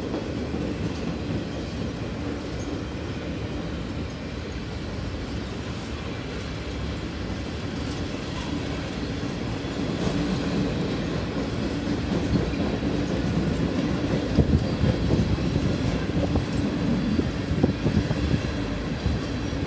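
CSX freight train's loaded flatcars rolling past with a steady rumble of steel wheels on rail. It grows louder about halfway through, with a few sharp knocks near the end.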